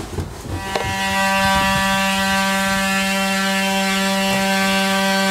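Oscillating multi-tool plunge-cutting into drywall: a steady, high buzz that starts about a second in after a few light knocks.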